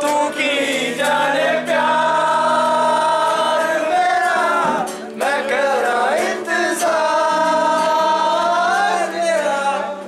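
Singing over guitar: long held notes that waver in pitch, with a short break between phrases about halfway through.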